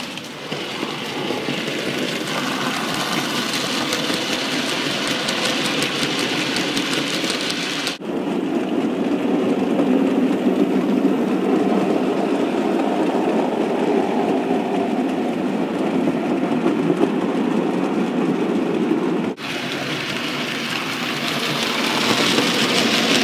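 OO gauge model freight trains running on the layout track: the locomotive's motor whirring and the wagons' wheels rattling over the rails. The sound changes abruptly twice. The middle stretch is louder and deeper as a train runs close by.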